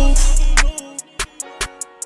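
Hip-hop background music; the bass and sustained parts drop out under a second in, leaving only sparse clicking percussion hits.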